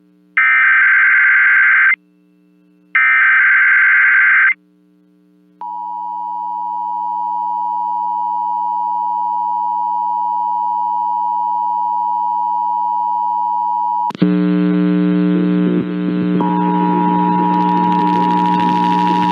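Emergency Alert System monthly test: the last two SAME digital header tones, each about a second and a half long, then the EAS two-tone attention signal (853 and 960 Hz) held steadily for about eight seconds. About fourteen seconds in, a louder held sound of many tones comes in over it, with faint steady low tones underneath throughout.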